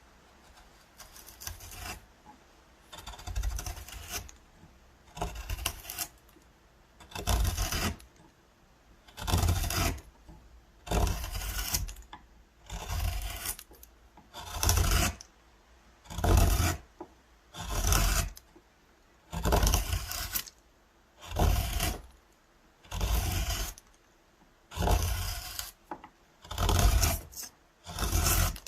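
A hand tool scraping or abrading wood in slow, regular strokes, about one stroke every one and a half to two seconds, with quiet between strokes.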